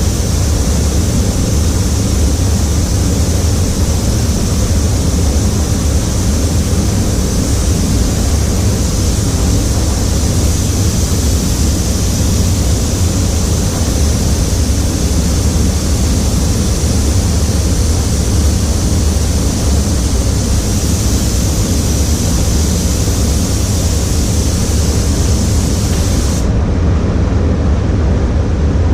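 Steady low rumble of a paint booth's ventilation with the high hiss of a spray gun's air. The hiss cuts off suddenly near the end while the rumble continues.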